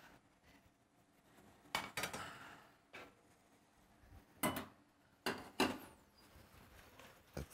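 Stainless steel pans and a bowl being handled on a stovetop, clanking against each other and the cooktop: about six sharp metal knocks spread over several seconds, some with a brief ring after.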